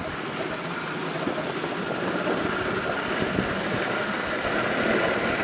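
Steady engine and wind noise of a moving vehicle, with a faint steady high tone, slowly growing louder.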